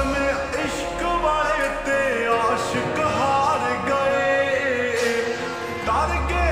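Slowed-down, reverb-heavy Punjabi pop song: a male voice sings a bending melody over sustained instrumental backing, with a deep bass that drops away after the start and returns near the end.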